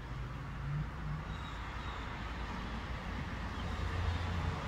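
Low, steady rumble of a distant motor, growing louder near the end.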